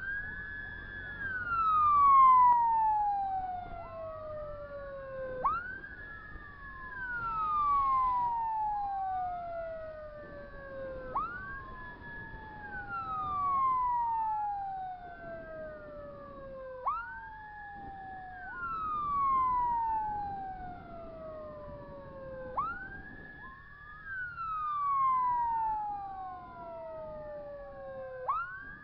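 Two emergency-vehicle sirens sounding together. The louder one rises quickly, holds its top note for about a second, then falls slowly, repeating about every six seconds. A second siren's falling wail overlaps it.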